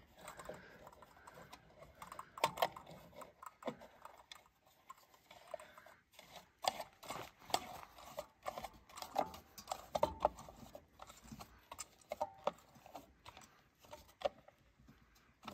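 Brass pipe fittings and a pressure switch clicking and scraping as they are handled and threaded together by hand: scattered, irregular light clicks and knocks.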